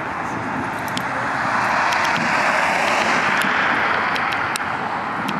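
A vehicle passing by, its noise swelling over a couple of seconds and fading, with several sharp faint cracks of distant fireworks on top.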